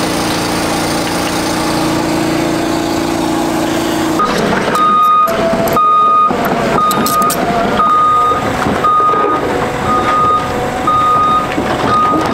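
Heavy machine's engine running just after a cold start, with a steady drone; about four seconds in, its reversing alarm starts beeping about once a second.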